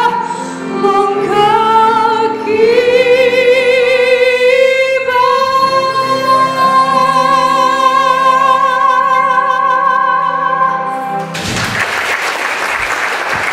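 A female singer sings the closing phrase with vibrato over piano and violin, ending on one long held note. Near the end the audience breaks into applause.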